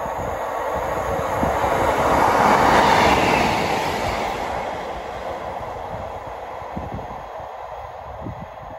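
A train passing by, its rolling noise building to a peak about three seconds in and then fading away.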